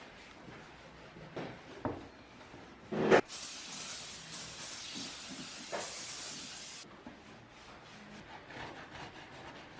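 A sharp knock on the plastic pot, then a spray hissing steadily for about three and a half seconds before cutting off suddenly. Light knocks and cloth rubbing on the plastic before and after.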